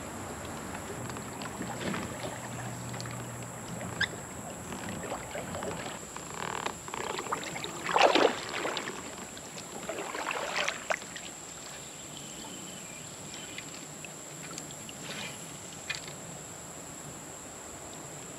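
Kayak paddle splashing in the water over several strokes, the loudest about eight seconds in, with a few sharp knocks. A steady, high-pitched insect drone runs underneath.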